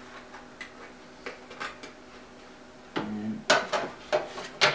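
A MakerBot 3D printer's removable build plate being handled and slid back into the printer: a few faint clicks, then from about three seconds in a quick run of sharp knocks and scrapes as the plate goes into its slot.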